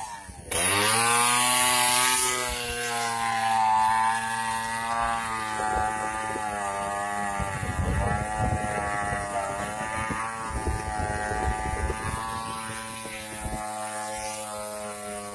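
A small engine running steadily, its pitch wavering slightly, with some low knocks partway through.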